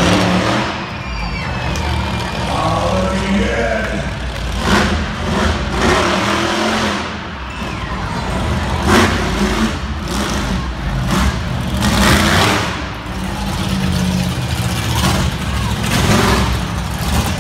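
Monster truck engine running and revving, a constant low rumble, broken by several loud crashes as the truck lands on and drives over junk cars, echoing in an indoor arena.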